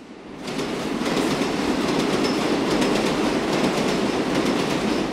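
Subway train running along the track: a dense rumble with rapid wheel clacks, fading in over the first second.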